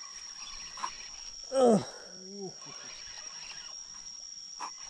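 A steady high-pitched drone of insects from the surrounding forest. About a second and a half in, a loud short call drops sharply in pitch, and a weaker falling call comes just after it.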